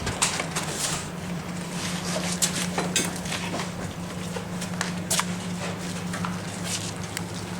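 Irregular sharp clicks and ticks, scattered a few a second, over a steady low hum.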